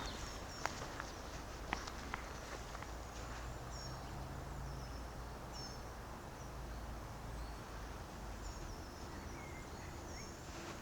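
Small birds calling in short high chirps that sweep down in pitch, repeated about every second, over a steady low rumble of distant road traffic. A few sharp clicks in the first couple of seconds.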